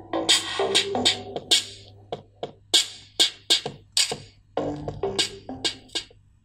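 Electronic dance music with a drum-machine beat, played through a small speaker driven by a homemade TEA2025 bridge-mode amplifier, with a steady low hum underneath. The music breaks off briefly about four and a half seconds in.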